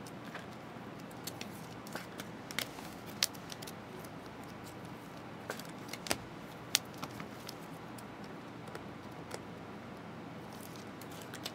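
Faint crinkling of a clear plastic trading-card pack wrapper and cards being handled as a pack is opened, with a dozen or so scattered sharp crackles over a low steady hiss.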